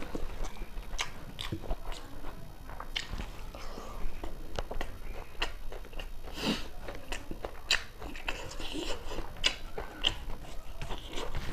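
Close-miked chewing of rice and pork curry eaten by hand: wet mouth clicks and lip smacks at irregular intervals.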